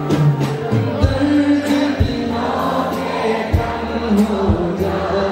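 Male singer performing a slow Hindi film ballad live with a band: a held, melodic vocal line over sustained bass and keyboard notes, with drum hits marking the beat.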